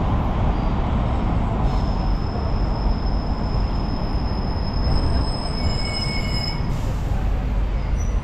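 City street traffic with buses driving past close by: a steady low rumble, with a thin high whine held for about four seconds from about two seconds in.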